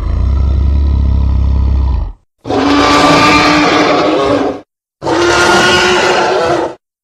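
Creature roar sound effects built from dinosaur and animal roar samples: a deep, low roar of about two seconds, then two harsher, brighter roars of about two seconds each, with short silences between them.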